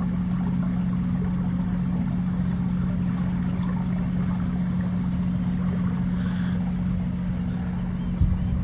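A motor's steady low hum, unchanging throughout, over the soft trickle of a small stream running through grass.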